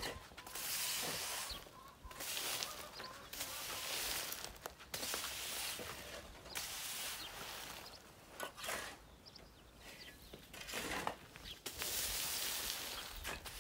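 Long-handled bristle broom sweeping dry, dusty dirt ground: repeated rough scraping strokes, each about a second long, with a short pause past the middle.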